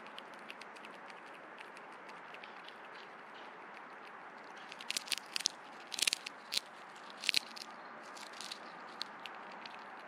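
Backyard birds and squirrels feeding at a seed feeder: scattered small clicks and crunches of seed being picked and cracked, with a cluster of louder cracks about halfway through. A steady background hiss runs under it.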